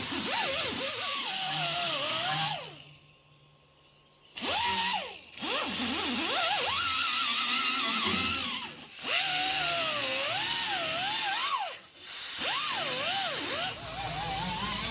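Power grinder with a coarse-grit abrasive wheel grinding the steel body panel, its whine wavering up and down in pitch as it loads against the metal, over a loud grinding hiss. It stops for about a second and a half a few seconds in and breaks off briefly twice more.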